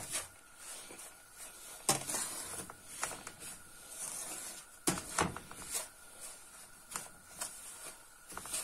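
Wooden spoon stirring and scraping semolina being toasted in a metal frying pan: irregular scrapes and knocks about once a second, with a faint steady high hum underneath.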